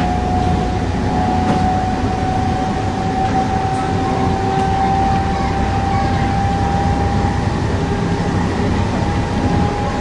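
Circumvesuviana commuter train running, heard from inside the carriage: a steady rumble with a whine that slowly rises in pitch.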